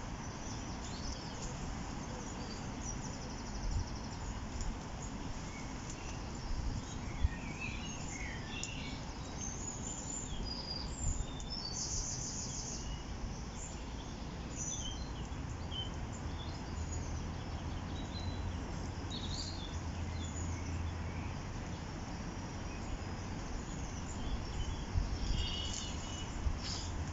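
Scattered songbird chirps and short calls over a steady low background rush of outdoor noise.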